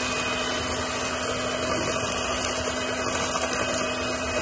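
Electric hand mixer running at a steady speed, its wire beaters whisking a thin egg-yolk batter in a bowl: a constant motor whine and hum.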